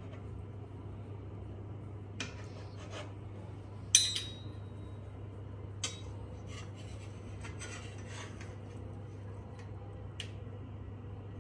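Steel knife and cake server scraping and tapping against a plate while a caramel custard is cut and a slice is lifted. One sharp, ringing metal clink about four seconds in is the loudest sound, with softer scrapes and taps around it, over a steady low hum.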